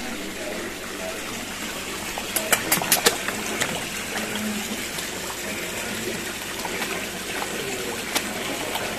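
Pond water splashing and sloshing as a crowd of koi churn at the surface around a hand held in the water, with a quick run of sharp splashes about two and a half to three seconds in.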